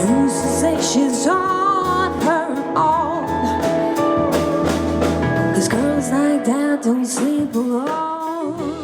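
Background song with a sung vocal over a steady beat and instruments.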